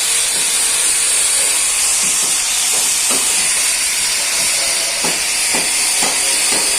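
Steady hiss of a compressed-air paint spray gun spraying car paint, with a few faint taps.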